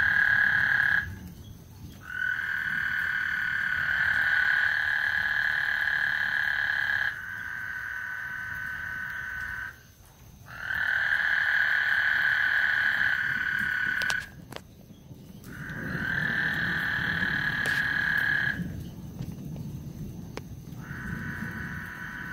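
Frogs calling in long, high-pitched trills, each several seconds long, with pauses of about a second between them.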